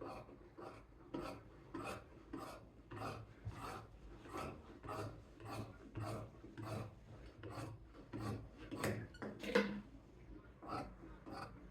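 Rhythmic rasping strokes, about two a second, like a rough surface being worked back and forth by hand; one stroke near the end is louder.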